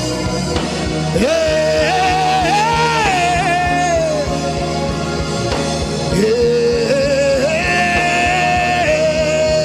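Worship music: a single melody line holding long notes and sliding between them, over a steady low beat.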